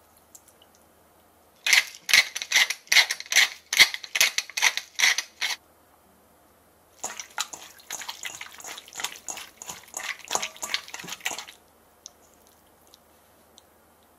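Hands kneading raw chicken thigh pieces in their marinade in a stainless steel bowl, working the liquid into the meat: quick wet squelching strokes several times a second, in two runs with a pause between, the first louder.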